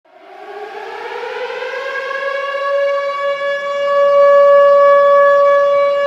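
Flint Firebirds hockey goal horn sounding one long blast. Its pitch rises over the first two or three seconds, then holds steady as it grows louder.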